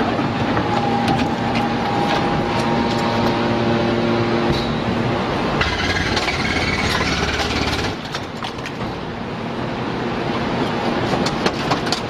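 Metal scrap baler-shear machine running: a steady mechanical hum with held whining tones and scattered metallic clicks and knocks. A louder, heavier stretch starts about halfway through and stops about eight seconds in.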